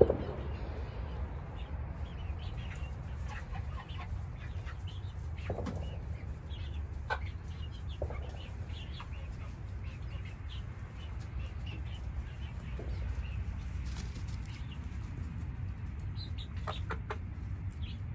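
A small flock of young hens clucking and peeping in short, scattered calls, over a steady low rumble.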